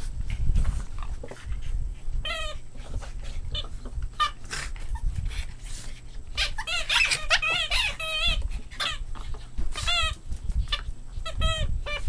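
Two Boston Terriers play-fighting and tugging over a toy, with repeated short, high, wavering squeaks: one about two seconds in, a cluster in the middle and several more near the end.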